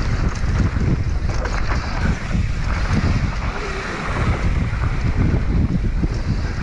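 Wind buffeting a GoPro's microphone on a fast downhill mountain-bike descent, mixed with the rumble of tyres rolling over a dirt trail. Short clatters from the bike come over bumps.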